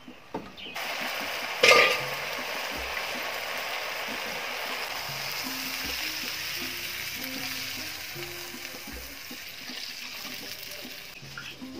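Steady hissing from an aluminium pot of chopped green bananas (matoke) on a wood fire as water is poured into it, with a short loud burst about two seconds in. Faint music plays underneath.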